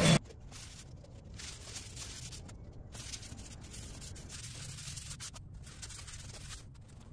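An orbital sander running on the wood cuts off just after the start. Then comes a soft, hissing rub of a pad and a hand wiping across the sanded maple top, in short stretches broken by brief gaps.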